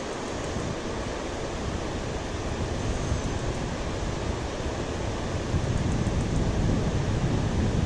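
Steady rush of river water mixed with wind buffeting the microphone. The low rumble of the wind grows stronger over the last couple of seconds.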